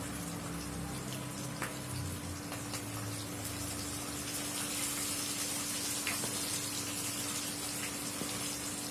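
Fish pieces deep-frying in hot oil in a kadai: a steady sizzling hiss, with a few light clinks as a steel spoon turns the fish. A steady low hum runs underneath.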